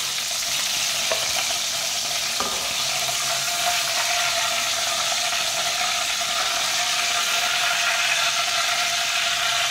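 Whole tinda gourds sizzling in hot oil in an aluminium karahi, a steady hiss. A couple of clicks from the metal slotted spatula against the pan come about one and two and a half seconds in, as the gourds are lifted out.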